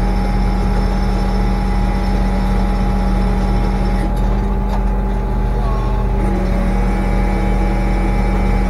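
A fishing boat's engine running steadily, a constant low drone.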